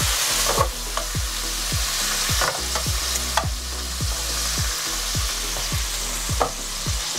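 Broccolini sizzling in a frying pan of butter with a splash of water, with a few short clinks of a utensil turning it, over a low steady hum.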